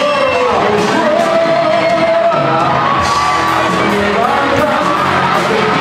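A rock band playing live: a male voice singing into a microphone over electric guitar, bass guitar and a drum kit, echoing in a large hall.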